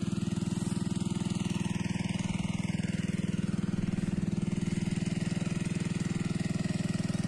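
Small engine of the pump draining the pond, running steadily with a rapid, even chug.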